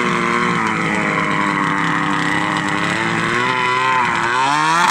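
Snowmobile engine running steadily, then revving up sharply in the last second.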